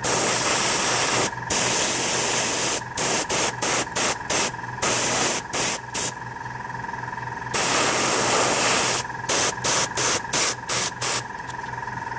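Dual-action, gravity-feed airbrush spraying paint in on-off bursts: some hissing sprays last a second or more, others are runs of quick short puffs as the trigger is pressed and let go. A steady faint hum runs underneath.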